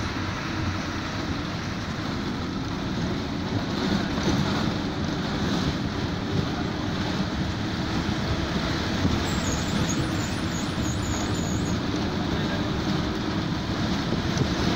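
Bus engine running steadily under road and wind noise heard through an open window while the bus is driving.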